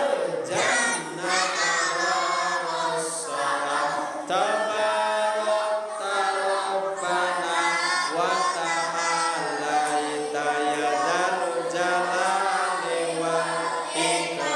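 A man chanting Islamic dhikr in Arabic into a microphone: a slow, melodic recitation with long held notes that glide up and down, broken by a few short pauses for breath.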